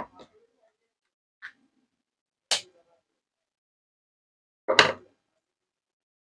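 A few short, sharp clicks and knocks from hand tools and the copper-wound ceiling fan stator being handled on a workbench: a faint tick, then a sharp click about two and a half seconds in, then a louder, heavier knock near five seconds in.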